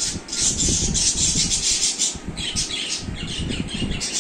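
Caged pet bird squawking and chattering in a rapid run of harsh, high calls, breaking into shorter separate chirps about halfway through.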